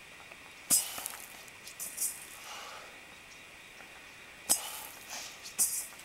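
A weighted swing ball on a rope striking and scraping across dry, sandy dirt, heard as four loud sharp knocks, each trailed by a brief gritty hiss.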